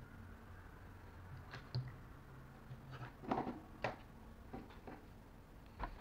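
A few light clicks and taps of small plastic objects being handled and set down on a desk, the loudest a little past the middle.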